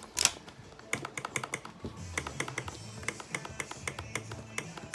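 Spring-loaded backrest off a 1990 Harley Electra Glide tour pak rattling in quick, even clicks, about seven or eight a second, with a louder clack just after the start. Something in the backrest's centerpiece is loose.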